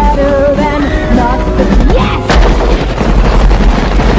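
Film soundtrack: tense orchestral music, then about two seconds in a sudden burst of rapid submachine-gun fire breaks out and keeps going, with heavily boosted bass.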